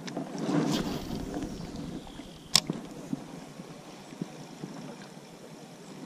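Rustling handling noise for a second or so, then a single sharp click about two and a half seconds in, with a few faint ticks after it, as a spinning rod and reel are handled.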